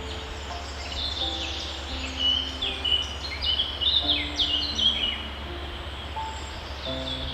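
Small birds chirping: a run of quick, high chirps starting about a second in, busiest in the middle and dying away after about five seconds, over soft held low tones.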